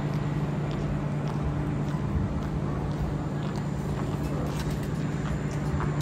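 Steady low mechanical hum with a constant drone, from the cable car station's running machinery. A few faint clicks sound over it.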